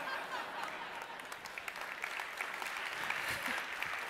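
A large audience applauding, many hands clapping at once, growing a little stronger after about a second and a half.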